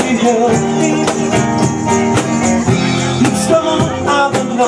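Live music: a nylon-string acoustic guitar playing a song, with hand percussion keeping a steady beat.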